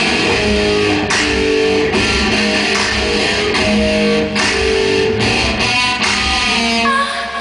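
Loud live band music: electric guitar playing sustained notes over a heavy pulsing low end, with no singing. The low end drops away near the end.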